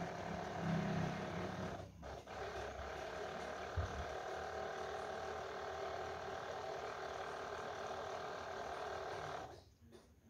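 Swan F16 electric knapsack sprayer's battery-powered pump motor running steadily, fed by wires held to the battery. It drops out briefly about two seconds in, there is a short knock about four seconds in, and it stops near the end.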